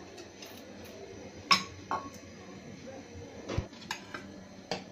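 Steel bowl and utensils clinking against a cooking pan several times: one sharp ringing clink about a second and a half in, a dull knock past halfway, and lighter clicks between.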